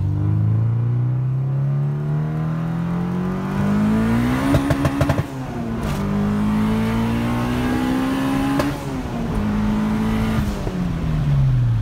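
A turbocharged Honda Civic hatchback's engine, making over 400 horsepower, pulling hard under acceleration from inside the cabin. The revs climb, drop at an upshift about five seconds in with a brief burst of rapid clicks, then climb again to a second shift. Near the end the revs fall as the car eases off.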